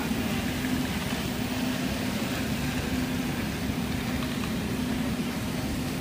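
Rubber hose production line machinery running: a steady mechanical hum with a constant low tone and no breaks.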